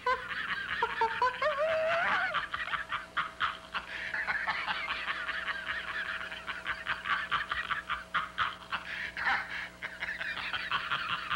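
A man laughing hysterically and uncontrollably: high wavering whoops at first, then rapid breathless cackles that run on without pause. This is the patient's fit of giggles for no apparent reason, which a doctor calls a manifestation of schizophrenia.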